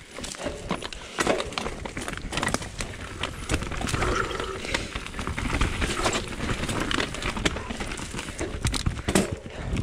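Full-suspension mountain bike riding down a dirt trail: tyres running over the ground with a continuous clatter of irregular knocks and rattles from the bike.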